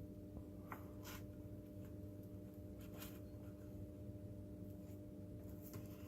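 Faint handling noises, a few light scratches and soft clicks, as a small cable connector is worked onto a robot circuit board's socket, over a steady low electrical hum.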